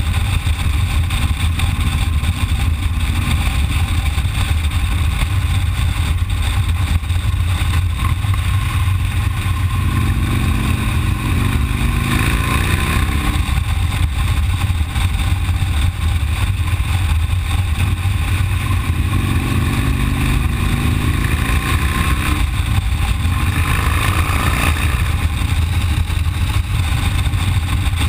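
Cruiser motorcycle engine running at road speed, heard from the bike with wind rushing over the microphone. The engine note climbs twice, about ten seconds in and again about twenty seconds in, as the bike accelerates.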